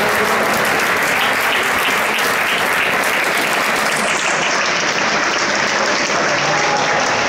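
Crowd in a badminton hall applauding steadily, the applause that follows a won rally.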